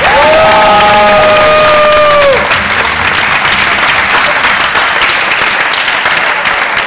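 Audience applauding, a dense steady patter of clapping. For the first two seconds a held note of music with overtones sounds over it, then ends.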